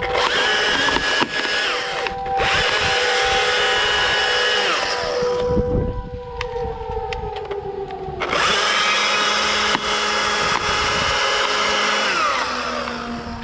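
Chainsaw running at high revs in two long bursts, each several seconds long. Its pitch falls away at the end of each burst as the engine comes off throttle.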